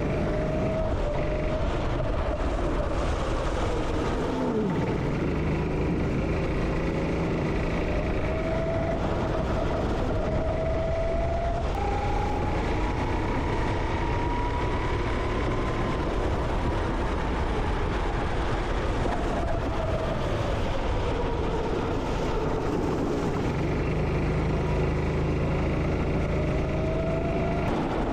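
Go-kart engine heard onboard during a lap, its pitch climbing steadily for several seconds and then dropping away, twice over, as the kart accelerates and then slows for corners.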